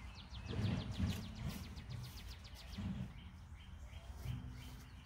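A small bird sings outdoors: a fast trill of high, falling chirps for the first few seconds, then a few short repeated notes, over a low rumble.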